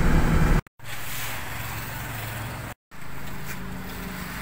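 Vehicle engine and road rumble heard from inside the cabin while driving. It cuts off suddenly about half a second in and is followed by a quieter steady low hum, broken by another brief dropout to silence near the end.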